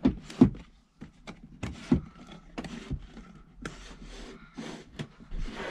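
Wooden wardrobe drawer being pulled out and tilted off its broken runner: a string of wooden knocks and clunks with sliding, rubbing scrapes between them, the drawer riding loose because its runner has come away from the side panel.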